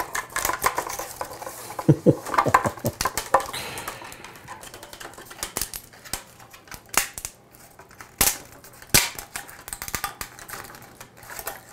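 Clicking, scraping and snapping of PLA plastic as support material is pried and broken off a large 3D-printed model, with three sharp, loud cracks in the second half.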